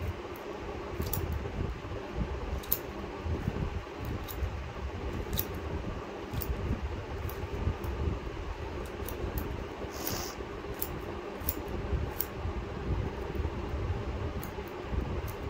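Scissors snipping onion skins and vegetable peels, a small sharp snip roughly once a second, over a steady low hum.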